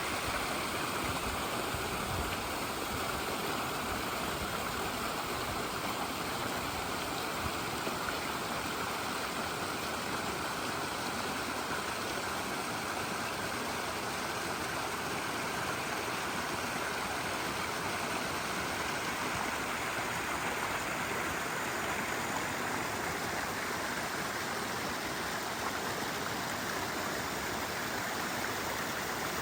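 Mountain stream flowing steadily, an even rushing of water with no change.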